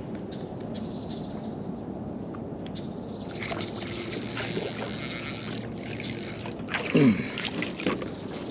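Spinning reel being cranked, its gears and line roller whirring and clicking, as a bream is reeled in to the kayak. A brief loud sound with falling pitch comes about seven seconds in as the fish is lifted from the water.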